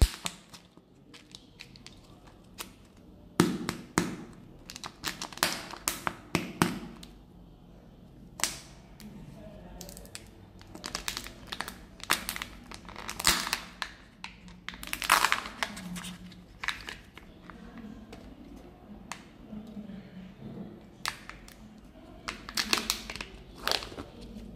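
The wrapper of a Kinder Joy egg is crinkled and torn off by hand. The sound is a run of irregular crackles and short rips, with a few sharper clicks as the plastic capsule is handled.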